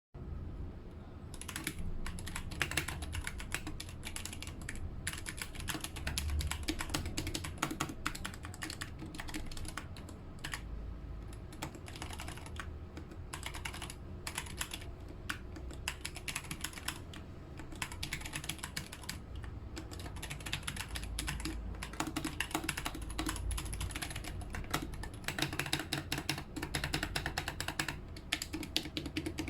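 Typing on a Kemove 61 SnowFox 60% mechanical keyboard with tactile Gateron Brown switches: a rapid, irregular stream of key clicks with a few brief pauses.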